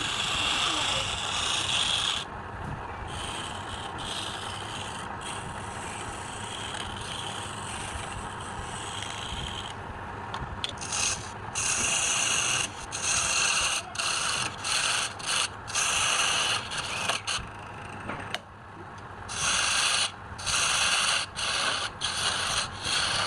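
Abrasive rubbing against wood on a woodturning lathe, a steady hiss for about ten seconds that then breaks into repeated short strokes of half a second to a second each.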